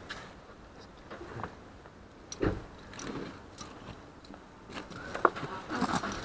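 Quiet rattles and knocks of a labrador being settled into a car, with one dull thump about two and a half seconds in.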